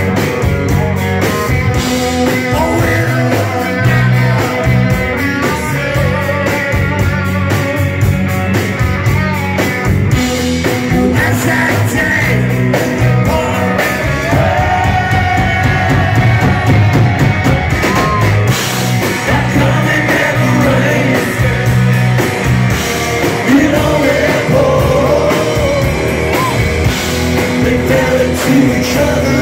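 Live rock band playing: electric guitars and drums, with a man singing lead.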